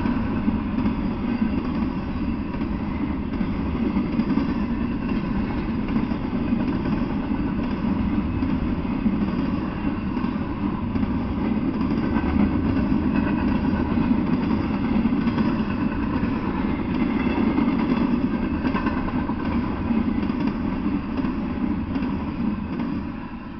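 Double-stack intermodal freight train rolling past, its steel wheels rumbling steadily on the rails with faint ringing tones over the rumble. The sound drops off sharply near the end as the last car goes by.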